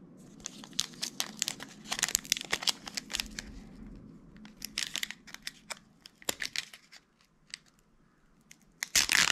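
Foil Pokémon booster-pack wrapper crinkling and tearing as it is handled and torn open by hand. A dense run of sharp crackles goes on for about six seconds, eases off, then comes back loudly near the end.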